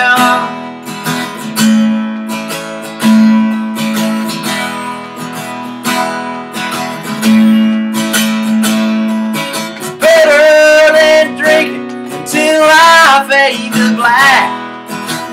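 Acoustic guitar strummed on its own for about ten seconds. Then a man's singing voice comes in over the strumming.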